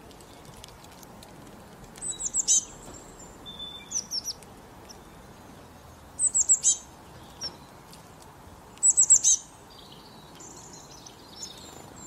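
Small songbird calling: clusters of quick, high, falling chirps, four bursts a few seconds apart over faint outdoor background hiss.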